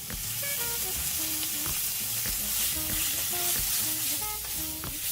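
Food frying, a steady sizzling hiss that comes in suddenly, over background music with bass and melody notes.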